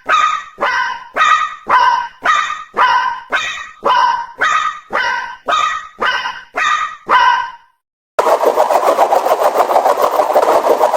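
Japanese level-crossing warning bell ringing about twice a second, each ring dying away quickly, in slightly alternating pitches. It stops about 7.5 s in, and after a short gap a steady, fast-fluttering noise takes over.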